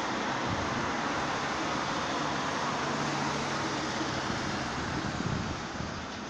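City street traffic: cars and a box truck driving past, a steady wash of tyre and engine noise with a low engine hum midway, easing off slightly near the end.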